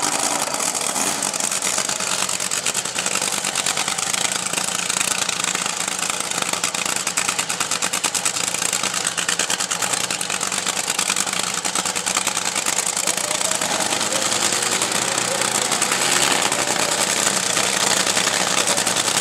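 Top Fuel dragster's supercharged, nitromethane-burning V8 idling with a rough, rapid, steady exhaust beat.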